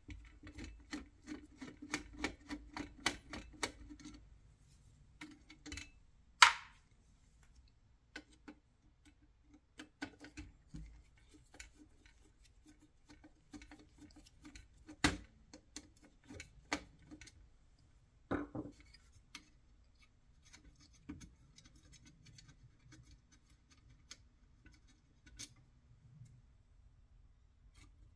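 Screwdriver turning screws in the cast aluminium frame of a 1960s Duncan parking meter mechanism. A quick run of small clicks and scrapes comes first. Sharper metal clinks follow at intervals, the loudest about six seconds in.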